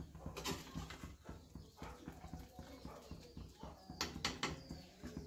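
A metal spatula clicking and scraping against a kadhai and a steel plate as boiled drumstick flowers are scooped out: a run of faint knocks, with a few sharper clinks about four seconds in.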